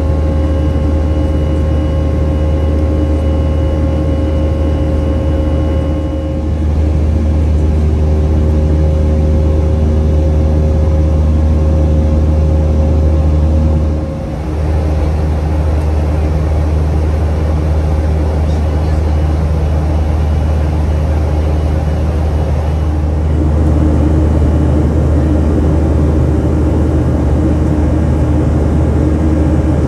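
Boeing 737-400 cabin drone: its CFM56-3 turbofans and the airflow heard from inside the passenger cabin, a steady deep rumble with faint steady tones above it. The level dips briefly twice, about six and fourteen seconds in.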